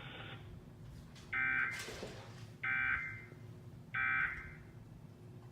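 Emergency Alert System end-of-message data tones: three short, identical bursts of digital buzzing about a second and a quarter apart, marking the end of the broadcast alert.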